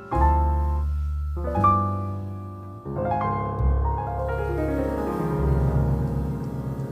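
Background piano music, a slow run of sustained notes and chords.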